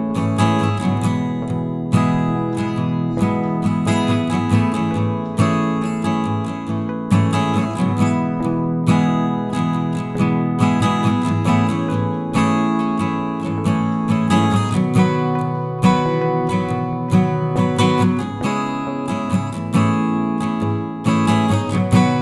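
Music played on a strummed acoustic guitar, with many sharp plucked attacks on the chords.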